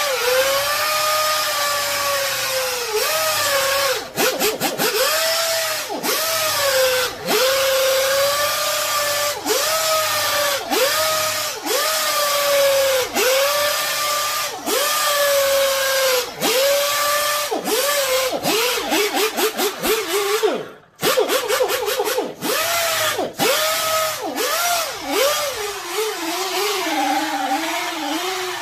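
Rotary buffer with a wool pad cutting compound into automotive clear coat, its motor running with a steady whine. The pitch dips about once a second as the trigger is eased off and back on so the pad does not grab or burn the paint; the buffer stops for a moment about two-thirds of the way in, then restarts, and runs lower and less steady near the end.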